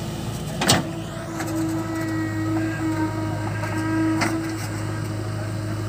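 JCB 3DX backhoe loader's diesel engine running steadily under load while the backhoe digs, with a higher steady whine through the middle seconds. A sharp knock, the loudest sound, comes under a second in, and a fainter one about four seconds in.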